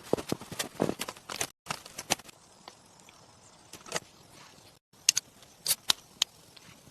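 A series of irregular sharp knocks and clicks, several in quick succession in the first two seconds and another cluster around five to six seconds in, with quieter stretches between.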